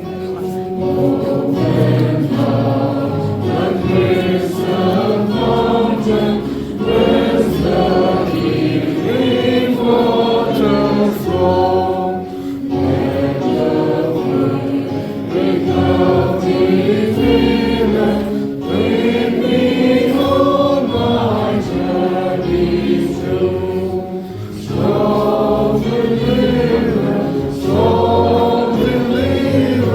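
A choir singing a hymn over steady low notes, with short breaks between phrases.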